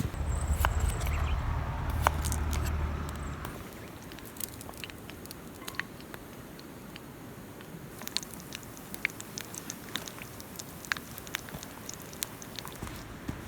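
Wood fire crackling: irregular sharp pops and snaps, sparse and uneven, over a quiet background. For the first three seconds or so a low rumble, like wind on the microphone, sits under the pops.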